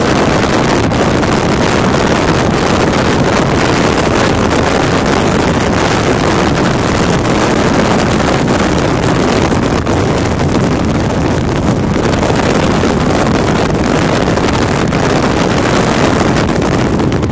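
Wind rushing and buffeting across the camera microphone in a moving car, over steady road and engine noise. It is loud and unbroken, with constant small gusts.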